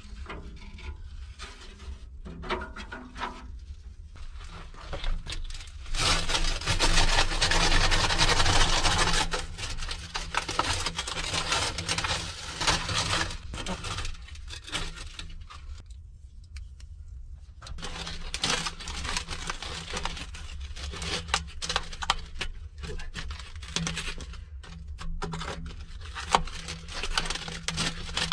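Hands scraping and breaking away dried clay and dirt packed around the base of a metal stovepipe, in uneven spells of scraping and crumbling, loudest about a quarter of the way in, with a short pause a little past the middle.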